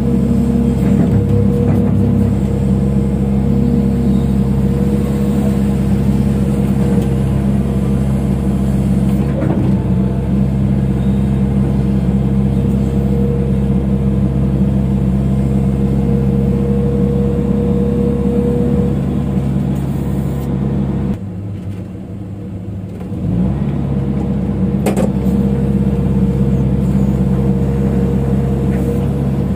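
Hydraulic excavator's diesel engine running steadily under working load, heard from the operator's cab, with a steady whine over it. About 21 s in the engine eases off for a couple of seconds, then picks back up; a couple of short knocks are heard along the way.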